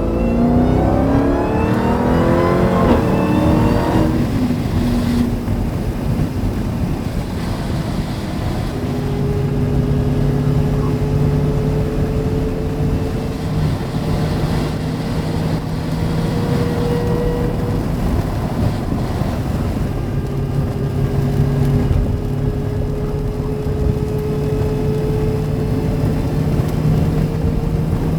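Jeep Grand Cherokee Trackhawk's supercharged 6.2-litre V8 accelerating hard for about four seconds, its pitch and supercharger whine climbing. It then settles into a steady cruise, with a constant engine drone over a hiss of tyre and road noise.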